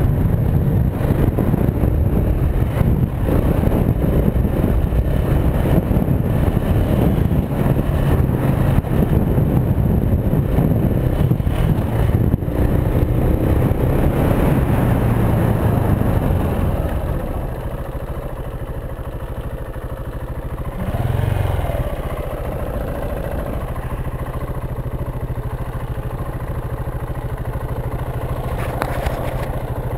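2015 KTM 690 Enduro's single-cylinder engine pulling the bike along a dirt trail, rough and loud under throttle. A little past halfway it drops to a steady idle, with one short rev of the throttle soon after.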